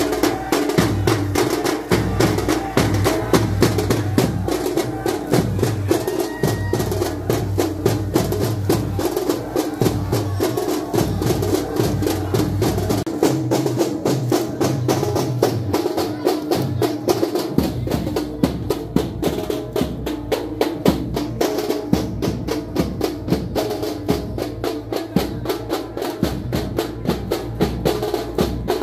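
Drums beating a fast, dense rhythm that keeps going without a break, the drumming that accompanies the Muharram chokara dance.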